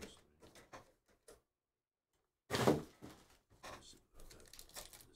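Handling noise from a trading-card box and its packs: light clicks and rustles, then a sudden thump about two and a half seconds in, followed by soft crinkling of card packaging.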